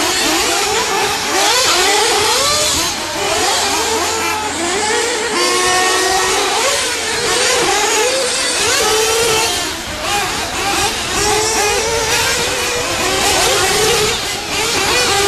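Several small nitro engines on 1/8-scale off-road RC cars, overlapping, each buzzing up and down in pitch over and over as the cars accelerate and lift off around the track.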